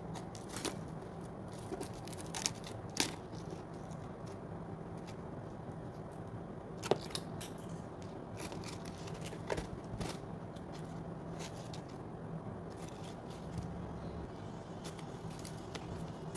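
Pringles chips and the can's plastic lid being handled as the stack is slid out of and back into the cardboard tube: scattered light clicks and crinkles, a few sharper ones in the first three seconds and again near the middle, over a steady low hum.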